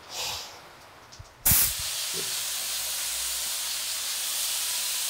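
Compressed-air paint spray gun spraying: a short hiss, then about one and a half seconds in the trigger opens with a sharp burst into a steady, continuous hiss of air and paint.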